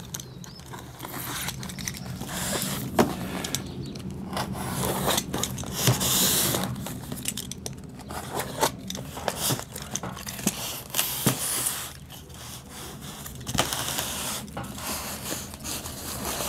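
Utility knife cutting along the seam of a styrofoam shipping box, then foam scraping and rubbing as the box is turned and its halves are pulled apart, with scattered knocks and clicks. The longest scrape comes about six seconds in.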